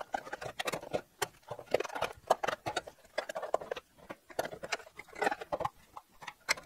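Irregular light clinks, knocks and scrapes of a Jaguar XK8 exhaust pipe and silencer being twisted and wiggled to free the pipe end from the connecting exhaust pipe.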